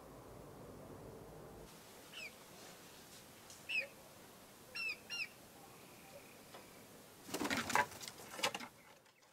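Chickens: about four short chirps that fall in pitch, two of them close together, then about a second of wing flapping near the end.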